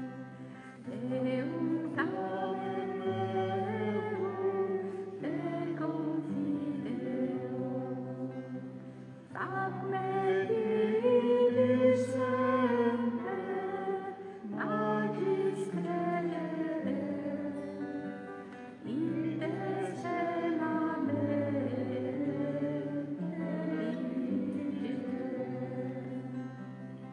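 Slow devotional choral music: voices sing over held low notes that change every few seconds, swelling loudest in the middle.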